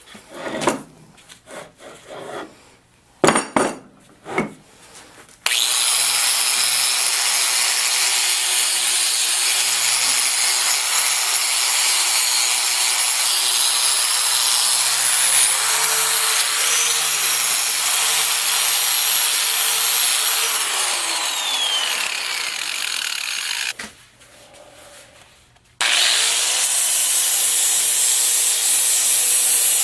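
A few loose knocks, then an electric power tool starts and scours the bare metal of a vise with a harsh, steady rubbing noise over a high motor whine. About 20 seconds in it is switched off and the whine winds down. It starts up again a couple of seconds later.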